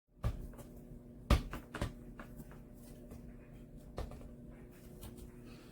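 A few scattered knocks and clicks, the loudest about a second and a half in, over a faint steady hum.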